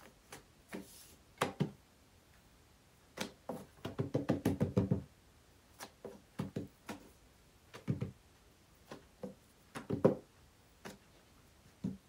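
Hands spreading olive oil over a thin rolled-out yufka dough sheet on an oilcloth-covered table. The hands and dough make scattered short taps and pats, with a quick run of them about three to five seconds in.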